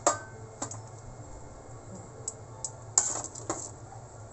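Metal tongs clinking against a stainless-steel steamer pot and tray as steamed bok choy is lifted out: a sharp clink at the start, a few light ticks, then a cluster of clinks about three seconds in.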